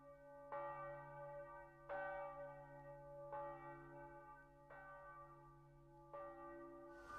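A bell tolling, struck five times about a second and a half apart, each stroke ringing on into the next.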